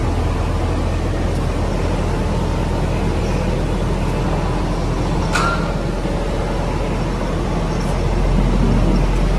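Steady, loud background rumble with a low hum, and one short sharp click about five seconds in.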